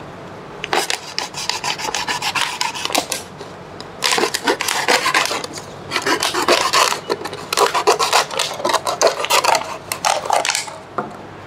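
A knife sawing through a thin plastic water bottle, the plastic crackling and crinkling in three spells with short pauses between.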